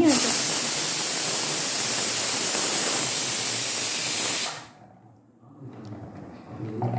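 Pressure cooker whistle: steam hissing out loud and steady for about four and a half seconds, then cutting off.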